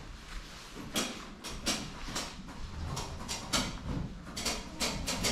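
Footsteps walking across a wooden floor, roughly two steps a second.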